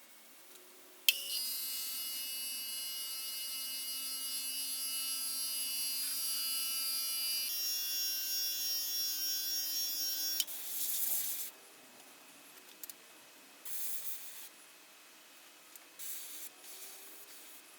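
A small airbrush air compressor switches on with a click, runs with a steady whine for about nine seconds, and shuts off. Then come three short hisses of the airbrush spraying paint.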